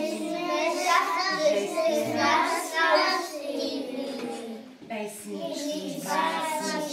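A group of young children singing together, with a brief pause between phrases a little past the middle.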